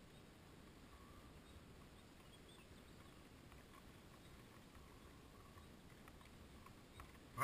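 Near silence with a faint low rumble and a few faint high chirps; a sharp click right at the end.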